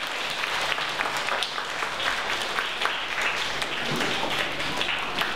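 Audience applauding, with many hands clapping at once at a steady level.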